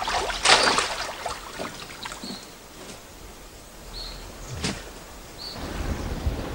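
Ambient sound of the lake: a brief splash of water about half a second in, a few short high chirps, and a sharp click. Near the end, wind and waves on open water rise and keep going.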